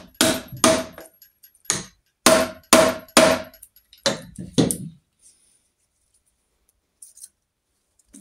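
A mallet tapping the alternator stator of a Norton Commando 850 engine, about eight sharp knocks each with a short ring, stopping about five seconds in. The taps nudge the stator over on its studs to even out the air gap around the rotor.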